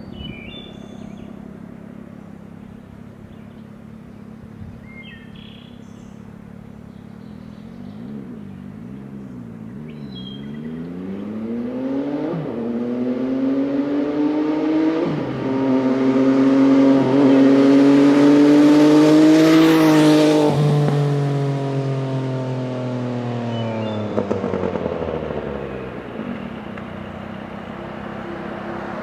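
MV Agusta Brutale 800 inline-three through a QD aftermarket exhaust riding past: it approaches with rising revs and an upshift, is loudest as it passes about two-thirds of the way in, then drops in pitch and fades away. Birds chirp faintly before it arrives, and another vehicle starts approaching near the end.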